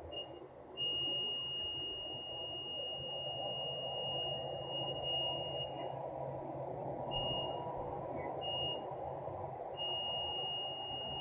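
Steady industrial machinery noise, with a high, thin, steady tone over it that sounds for about five seconds, twice briefly, and again near the end.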